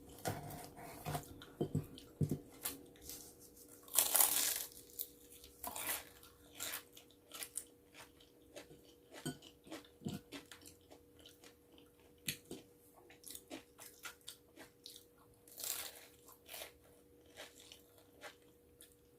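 A person eating close to the microphone: bites and chewing with many short, crisp clicks at an uneven pace, the loudest bites about four seconds in and again near sixteen seconds.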